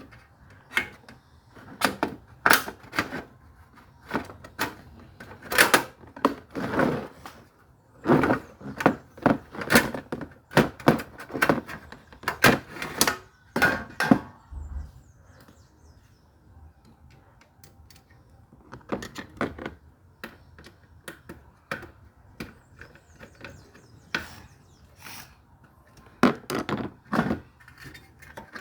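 Irregular clicks, taps and knocks of small hard parts being handled, coming in quick clusters with a quieter stretch in the middle.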